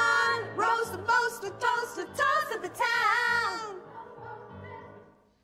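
A female vocal trio singing a song in close harmony, with long held, wavering notes. The singing fades away about four seconds in and is cut off just before the end.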